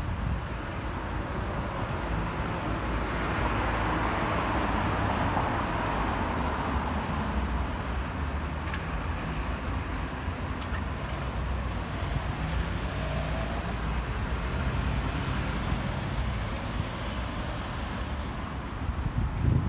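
Road traffic on a city street: steady engine and tyre noise, swelling as a vehicle passes a few seconds in, with a brief low thump near the end.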